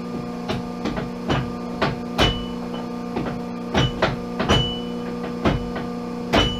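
Pratt & Whitney Model B lathe humming steadily while its feed controls are set, giving a series of irregular sharp metallic clicks and knocks, some with a brief high ring.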